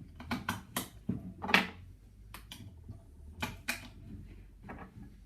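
Batteries being pressed into the plastic battery holder of an electronic deadbolt's interior unit: a run of sharp clicks and plastic clatter, the loudest about one and a half seconds in.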